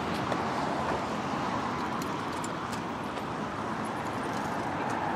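Steady hum of road traffic that swells and eases slowly, with a few faint light ticks above it.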